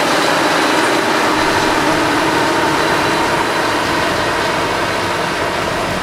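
Claas Lexion 440 combine harvester running steadily as it harvests: a dense, even mechanical rush with no clear beat.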